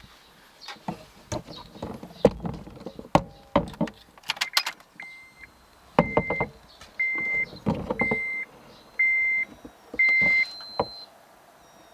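A car's electronic warning chime beeping six times at one steady pitch, about once a second, mixed with clicks and knocks of handling around the car.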